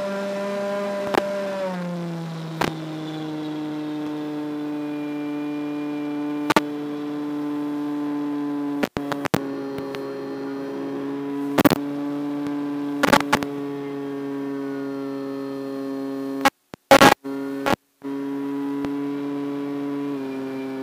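Electric motor and propeller of a small RC flying wing, heard from on board as a steady whine whose pitch drops about two seconds in as the throttle comes back, then shifts again near the end. Sharp crackles and a few brief dropouts break into it, most of them around the middle and late in the clip.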